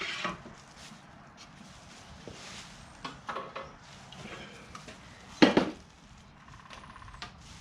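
Brake parts and their packaging being handled: rustling with scattered light knocks, and one sharp, louder knock about five and a half seconds in.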